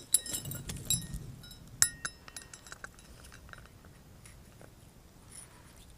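Light metallic clicks and clinks, several close together in the first two seconds, then a few faint ones.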